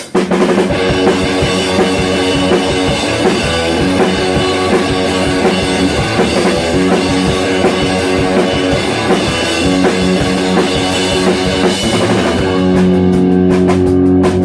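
Rock band playing a song's instrumental intro live: electric guitar, bass and drum kit with no vocals. About twelve seconds in the band moves to long held chords.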